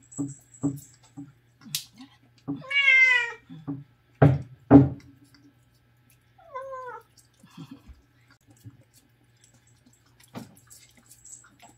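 Domestic cat meowing twice: one long, wavering meow about three seconds in and a shorter, fainter one past the middle. Two loud short thuds come between them, along with a few light knocks.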